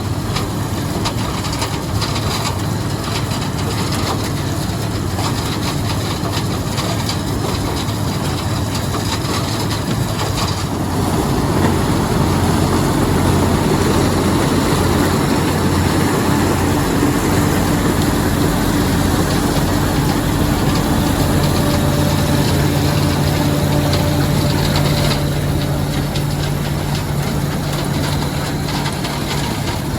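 White 7300 combine running in a corn field, its engine and harvesting machinery making a steady, dense mechanical noise. It grows louder about ten seconds in, and a steady low hum joins about twenty seconds in.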